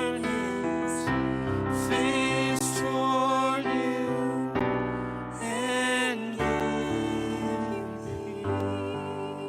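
Worship song sung live over piano accompaniment, the voice holding long notes with vibrato over sustained chords; the music begins to fade near the end.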